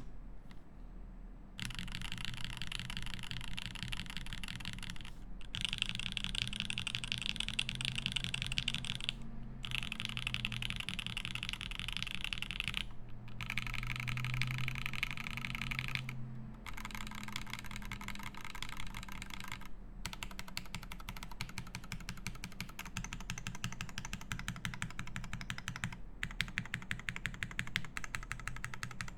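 Fast typing on a TGR Jane V2 CE mechanical keyboard with lubed SP-Star Meteor White switches, a carbon-fibre plate and GMK keycaps. It is a dense stream of keystroke clacks in runs of a few seconds, each broken off by a short pause.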